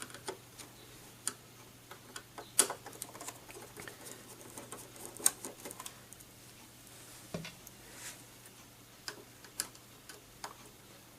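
Irregular small clicks and ticks of a Phillips screwdriver turning out screws from a Blu-ray player's plastic housing, over a faint steady hum.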